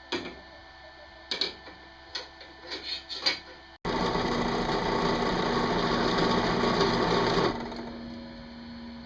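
A few light knocks and clicks from hand work, then a small power tool runs steadily for about three and a half seconds and winds down.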